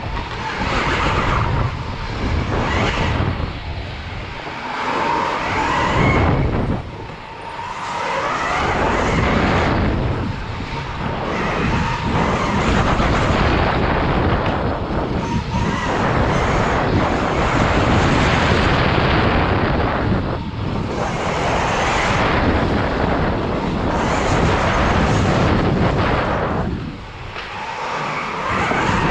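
Electric KTM Freeride dirt bike ridden at speed, heard from a helmet camera: a steady rush of wind over the camera along with the running motor and drivetrain, dipping briefly several times and most deeply about seven seconds in and near the end.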